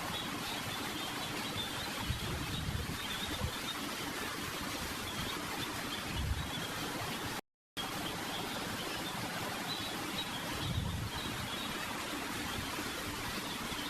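Steady hiss of background noise with no voice, broken by a sudden dropout to complete silence for a fraction of a second about seven and a half seconds in.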